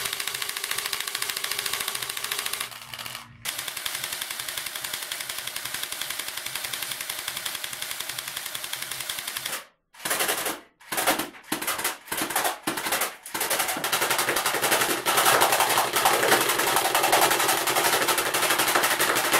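Homemade CO2-powered airgun submachine gun firing steel BBs on full auto: long bursts of rapid clicking shots, then several short bursts about ten seconds in, then a long, louder burst near the end.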